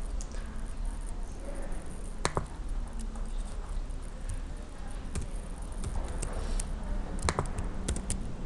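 A handful of sharp, separate clicks from a computer's keyboard and mouse, spaced a second or more apart with two close together about seven seconds in, over a steady low hum.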